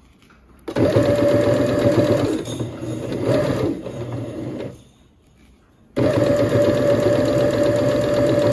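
Electric sewing machine stitching through two layers of fleece in two spells. It starts under a second in, slows after a couple of seconds and stops about halfway. After a pause of about a second it starts again and runs steadily.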